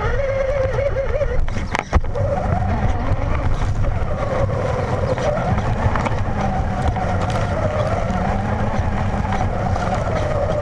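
Traxxas Slash VXL RC truck's brushless motor whining under throttle, picked up by a camera riding on the truck, over a steady rattle and rumble of the chassis and tyres on the ground. The whine wavers in pitch, drops out briefly with a sharp knock about two seconds in, then picks up again.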